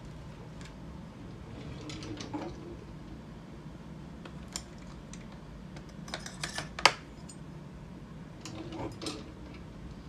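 Scattered light clicks and taps over a low steady room hum, with a quick cluster of clicks about six seconds in ending in one sharp click.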